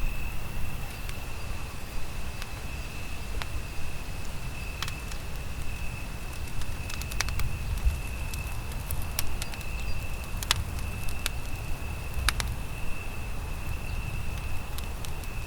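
Campfire crackling, with irregular sharp pops over a low steady rumble. A thin, steady high-pitched tone sits above it all the way through.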